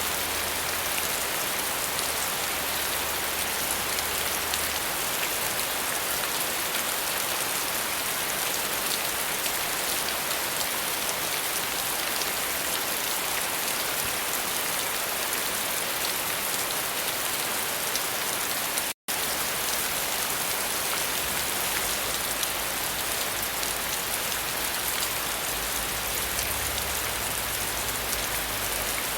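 Steady rain falling on a surface, an even, dense hiss of drops. About two-thirds of the way through it cuts out for a split second and comes straight back.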